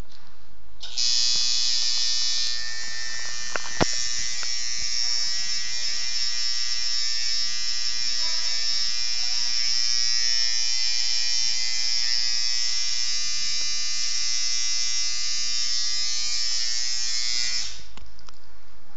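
Electric tattoo machine buzzing steadily, starting about a second in and cutting off suddenly near the end, with a single sharp click about four seconds in.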